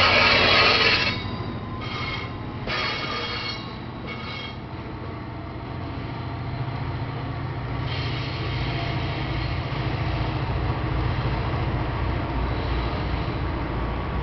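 NJ Transit Comet V passenger coaches rolling past on curved track, their wheels squealing loudly at first and stopping about a second in, then squealing again in three short bursts over the next few seconds. The train's rumble then fades as it moves off, while a low steady drone builds in the second half.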